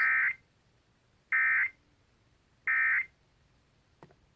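Three short bursts of Emergency Alert System SAME data tones, a buzzy digital warble, each about a third of a second long and spaced about a second and a third apart: the end-of-message code that closes the test broadcast. A faint click follows near the end.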